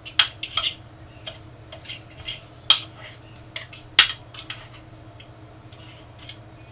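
Small metal cocktail fork clicking and scraping against a metal muffin tin as chicken thighs are pressed into its cups. The clinks are irregular, with the two sharpest near three and four seconds in, over a steady low hum.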